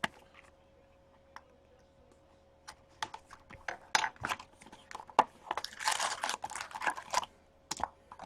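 Plastic wrap being torn and crumpled off a sealed box of hockey cards, with handling clicks of cardboard. Quiet at first, the crackling starts about three seconds in and is densest around six to seven seconds in.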